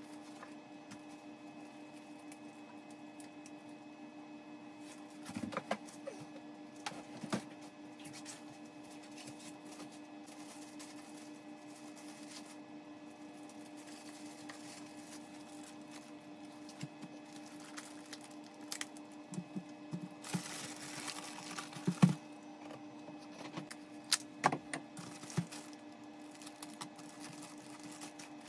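Rustling of plastic-wrapped products and soft knocks as they are packed into a cardboard shipping box, coming in scattered bursts, with a longer rustle about three quarters of the way through. A steady low hum runs underneath.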